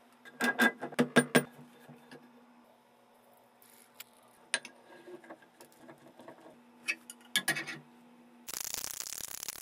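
Sharp metal clanks and knocks from handling the parts of an old cast-iron bench vise, a quick cluster at the start and scattered single knocks later, over a steady low hum. About a second from the end a harsh, rough hiss starts and runs on.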